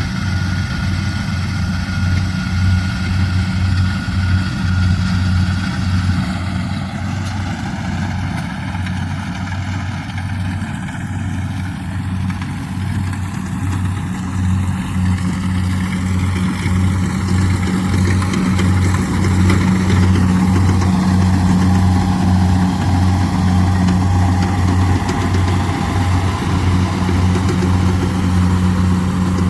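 Kubota rice combine harvester's diesel engine running steadily under load with a deep, even hum. A fainter high whine sounds over the first few seconds and then fades.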